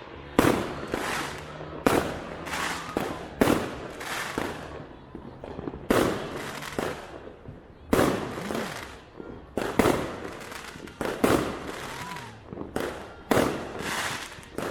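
Firecrackers and fireworks exploding in a loud bang every second or two at irregular intervals, each bang trailing off in an echo.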